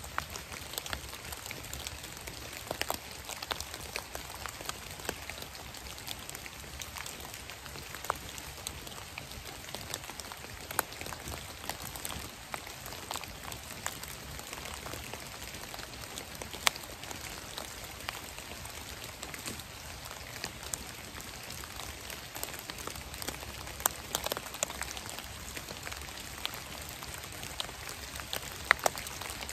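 Rain falling on dead leaves: a steady hiss scattered with irregular sharp drop hits.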